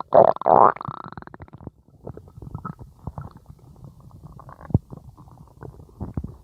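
Stomach growling: a loud gurgling rumble in the first second, then a run of fainter crackling gurgles with one short, louder gurgle about three quarters of the way through.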